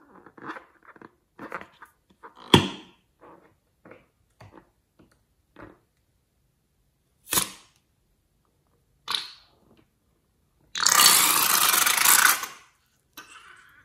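A liquid-filled rubber balloon rubbed and squeezed in the hands, squeaking and crinkling, with one sharp loud click. Two sharp snips follow as scissors cut the balloon's tip, then a loud rush of liquid for about two seconds as the balloon is squeezed empty into a bowl of liquid.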